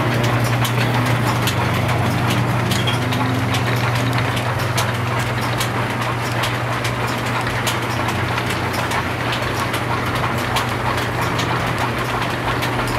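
Belt-driven line shaft of an antique machine shop running: a steady low electric-motor hum under the even rush of spinning pulleys and loose flat belts, with frequent light clicks.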